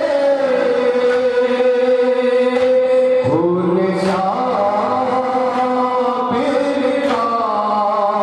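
Men's voices chanting a noha, a Shia lament for Hussain, into a microphone. The lines are sung in long held notes, and the melody steps to new notes about three seconds in and again past six seconds.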